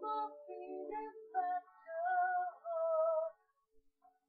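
A high singing voice: a short melodic phrase ending in a long held, slightly wavering note that stops about three and a half seconds in, followed by near silence.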